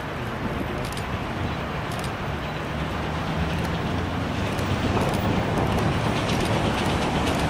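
Victorian Railways A2 class steam locomotive 986 approaching with its train of wooden carriages: a low rumble of locomotive and wheels that grows louder, with a few sharp clicks.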